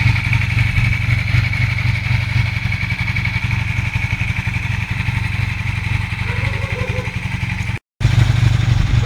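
1987 Honda CB 450 TR's air-cooled parallel-twin engine running steadily with a low rumble, its twin carburetors not yet balanced according to the owner. The sound breaks off for a moment near the end.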